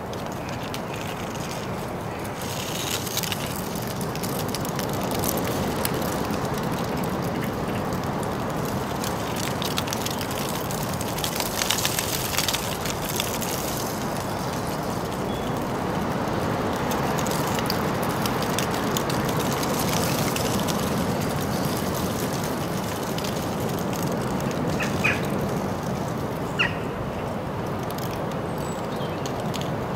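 Outdoor city street ambience: a steady wash of distant traffic noise, a few clicks and rattles about midway, and two short bird chirps near the end.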